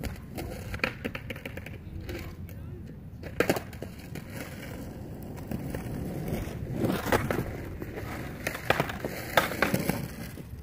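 Skateboard on a concrete sidewalk, with several sharp clacks of the board hitting the pavement spread through, over a low rumbling haze.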